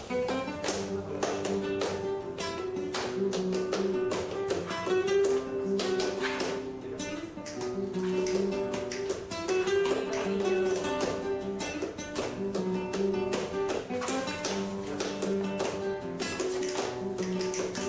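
Flamenco acoustic guitar playing, with rhythmic palmas (hand clapping) and the sharp taps of a dancer's heeled shoes on a wooden floor.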